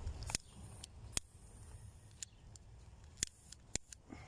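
Several sharp, irregular clicks and ticks from small fishing tackle being handled in the hands, over a faint low rumble.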